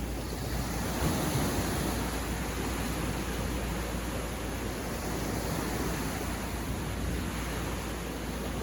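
Ocean surf washing onto a beach: a steady rush of breaking waves, swelling slightly about a second in.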